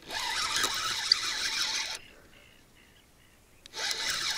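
Spinning reel being cranked to retrieve line against a hooked fish, a ratchety whirring of the reel's gears, in two spells: about two seconds at the start, then again near the end after a short pause.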